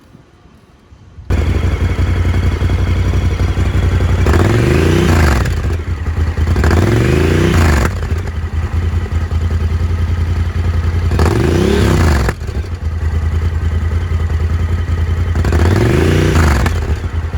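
Honda Talon 1000's parallel-twin engine running through a Graves cat-back slip-on exhaust, idling and blipped four times, each rev rising and falling back to idle over about a second. The sound starts abruptly a little over a second in.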